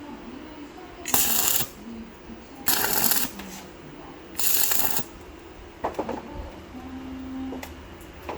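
Three short bursts of welding crackle, each about half a second long, a few seconds apart: tack welds on galvanized square steel tubing. A few sharp clicks and knocks follow near the end.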